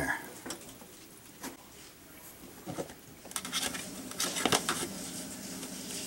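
Water from a front-loading washer's drain-pump opening dripping and pattering into a drip pan, after the pump was pulled with the machine still holding water. Scattered taps come more thickly from about halfway through.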